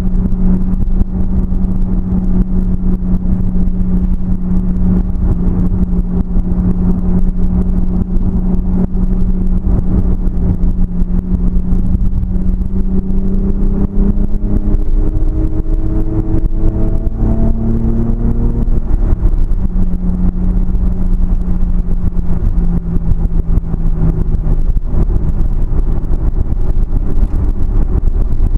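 Car engine running at a steady drone with a heavy low rumble over the sound. About halfway through, the engine note rises several times, then settles back to a steady drone.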